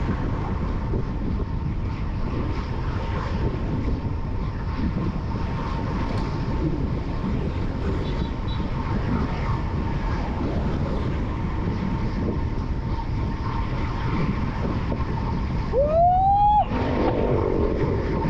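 Wind rushing over the microphone of a road bike descending at speed. About sixteen seconds in, a loud pitched whine rises sharply for under a second, followed by a fainter falling whine.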